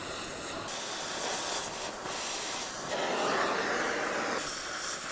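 Oxy-fuel cutting torch hissing steadily as it cuts through a steel exhaust manifold and catalytic converter shell. The hiss shifts in tone about three times.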